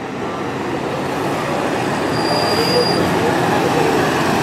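Several Harley-Davidson police motorcycles with V-twin engines riding past at low speed in a group, their engines running steadily and growing slightly louder. A brief high steady tone sounds about two seconds in.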